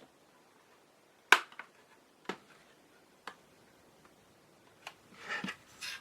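Sharp, single clicks about once a second, then a short rustle near the end: small hand tools and plastic kit parts being handled while a plastic ship model is built.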